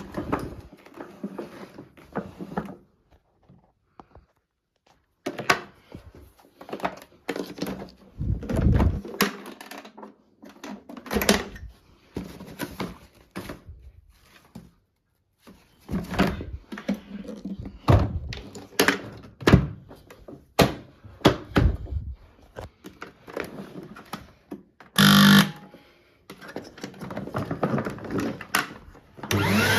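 Irregular knocks and clunks of handling, with quiet gaps between them. Near the end the Numatic CT370 vacuum cleaner's motor switches on and runs up with a rising whine.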